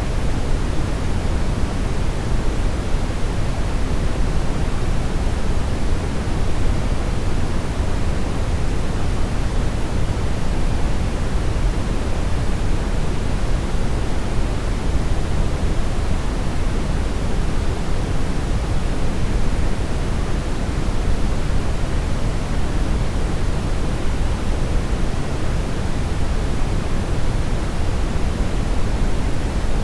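Steady brown noise: an even, deep rushing hiss weighted toward the low end, with no changes or events.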